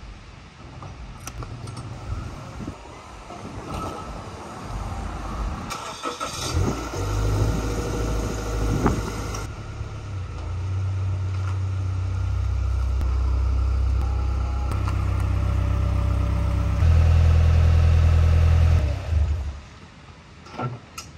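Scion FR-S's 2.0-litre flat-four boxer engine starting, running as the car pulls forward out of a garage, and getting louder as it nears. It cuts off near the end. Before the engine settles, a noisy stretch of a few seconds may come from the garage door being raised.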